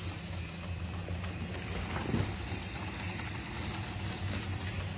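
Delta 3D printer running as it starts a print, a steady low hum from its motors and fans, with a brief rustle about two seconds in.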